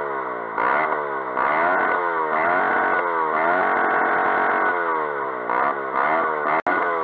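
Daelim Roadwin 125's single-cylinder 125 cc four-stroke engine revved again and again, the pitch rising and falling with each blip and held high for about a second in the middle. The sound cuts out for an instant near the end.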